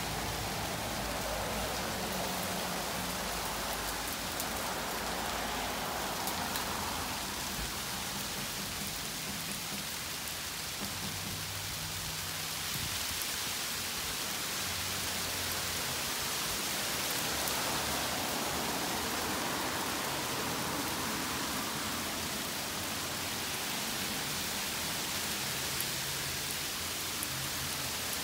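Freezing rain mixed with small hail pellets falling steadily on shrub leaves and a concrete slab: an even hiss with a few faint ticks.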